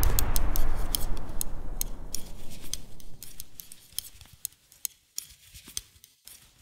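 The final heavy metal chord ringing out and fading away over the first three to four seconds, under a run of quick, irregular light clicks, a few a second, from knitting needles clacking.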